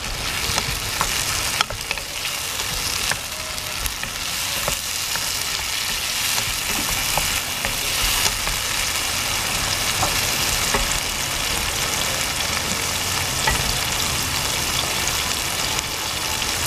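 Tomatoes, onions and garlic sautéing in a nonstick pan with a steady sizzle, with a wooden spatula stirring and tapping against the pan every second or two.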